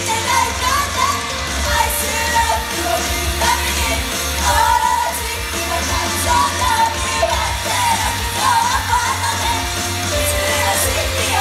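Live idol-group pop-rock song: female voices singing the melody over a loud track with steady bass and drums.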